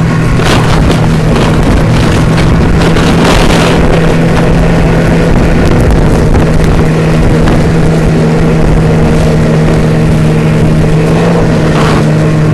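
Snowmobile engine running at a steady speed while towing a sled, heard from the sled on the tow ropes behind it, with wind rushing over the microphone.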